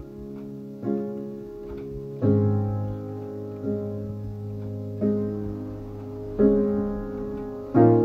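Slow, gentle piano music: chords struck about every one and a half seconds and left to ring, with a deep bass note coming in a little over two seconds in.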